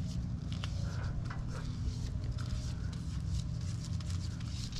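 Paintbrush scratching and dabbing primer onto the metal column of a radial drill: soft, irregular scratchy strokes with a few light taps, over a steady low hum.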